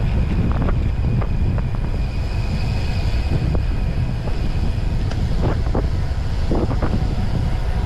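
Wind buffeting a GoPro action camera's microphone while riding at speed, a heavy steady low rumble. A few brief, fainter higher sounds cut through it about a second in, midway and near the end.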